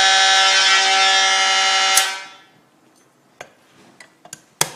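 Edwards mechanical fire alarm horn sounding a loud, steady, harsh buzzing tone, then cut off abruptly with a click about two seconds in as the pull station's switch is flipped off. Several scattered clicks follow, with a sharp clack near the end.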